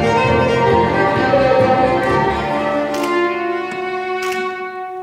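Fiddle and double bass playing an Irish fiddle tune as a duet, the bowed bass carrying low notes under the violin's melody. The low bass part thins out about halfway, leaving longer held notes toward the end.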